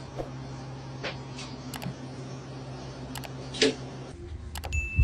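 A handful of short, sharp clicks and taps scattered over a steady low hum, which stops about four seconds in.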